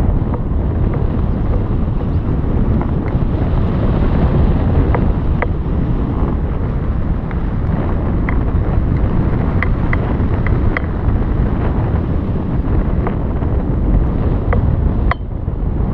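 Wind buffeting the microphone: a steady low rumble with a few faint ticks scattered through it.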